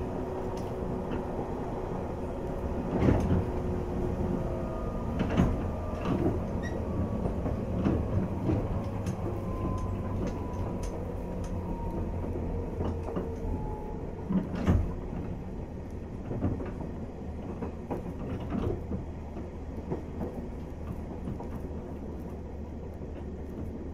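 Onboard running sound of a JR East 485 series 3000 subseries motor car: motor and gear whine slowly falling in pitch as the train slows, over a steady low rumble. Several sharp knocks and clunks come in the first fifteen seconds.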